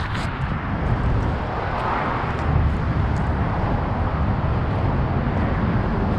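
Steady low rumble of vehicle noise, swelling slightly about two seconds in.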